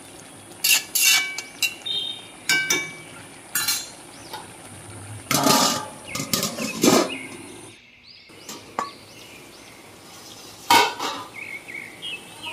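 A metal spatula scrapes and clinks against a wok as a thick vegetable-and-prawn curry is stirred. A steel lid clanks on the pan around the middle. A steady high-pitched hum underneath stops abruptly about eight seconds in.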